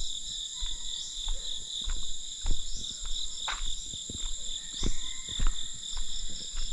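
A steady, high-pitched insect chorus buzzing without a break, with irregular clicks and soft thumps over it.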